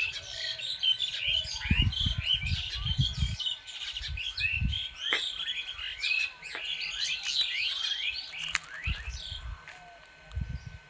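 Many small birds chirping and calling at once, short quick notes overlapping throughout, with a faint steady high tone beneath. Low dull thuds come in clusters about two to three and a half seconds in, again near five seconds, and near the end.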